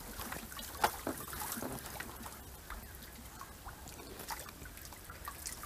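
Water trickling and dripping off a fine-mesh bamboo-framed lift net as it is hauled up out of the water, with scattered small clicks and one sharper knock about a second in.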